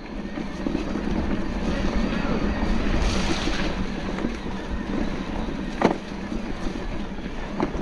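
Wind buffeting the microphone while riding a mountain bike, over a steady rumble of tyres rolling on the trail. Two short sharp knocks, about six and seven and a half seconds in.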